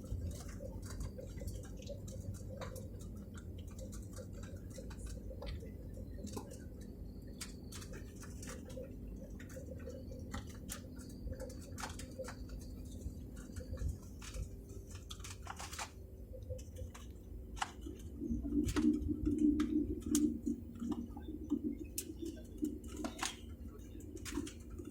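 Airliner cabin noise: a steady low rumble with many scattered light clicks and rattles, growing louder for a few seconds about eighteen seconds in.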